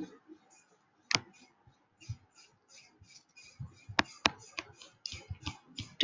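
Stylus tapping and scratching on a tablet screen while handwriting, with a few sharper clicks about a second in and twice around four seconds in.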